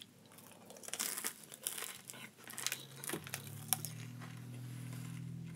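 Small clear plastic snack bag crinkling and rustling in the hand while an edible bug is picked out and eaten, with crunching mixed in. A low steady hum comes in about three seconds in and grows a little toward the end.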